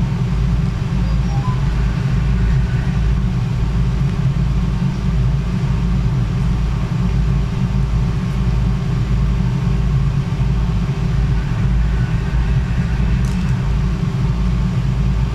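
Steady low hum and rumble of machinery, with a few faint steady tones above it and no distinct events.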